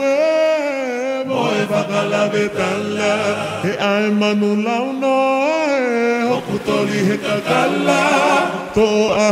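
A choir singing a Tongan song in harmony: several voices hold long notes and glide between pitches over a sustained low part.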